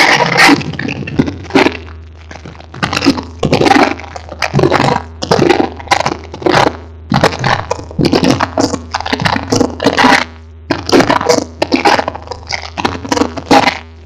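Loud dance music over a PA, so overdriven in the recording that it comes through as harsh crackling bursts, a few a second, over a steady low hum.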